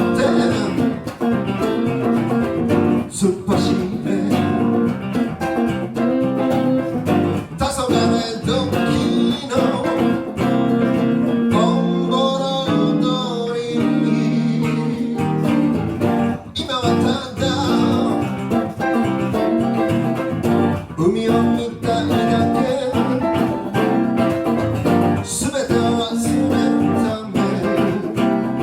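Live band music led by guitar, playing continuously.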